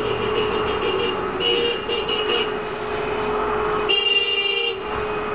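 Trolza-5275.03 Optima trolleybus driving past close by, its electric drive giving a steady whine. Two short bursts of hiss cut in, about a second and a half in and again about four seconds in.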